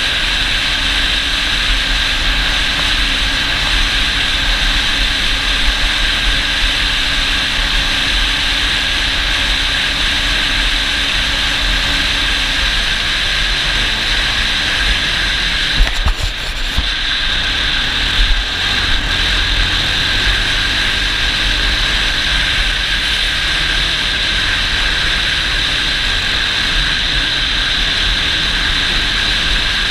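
ATV running steadily while being ridden: a constant engine drone with a loud, even rushing noise and a low rumble. There are a few brief jolts about 16 to 18 seconds in.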